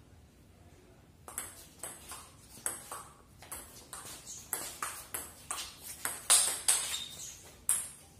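Table tennis rally: a ping-pong ball clicking off the paddles and the table in a quick run of sharp ticks, about two to three a second. The ticks begin about a second in and stop shortly before the end.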